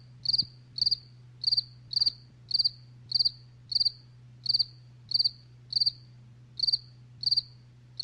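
Cricket chirping in an even rhythm, a short high chirp of a few quick pulses about three times every two seconds, over a steady low hum.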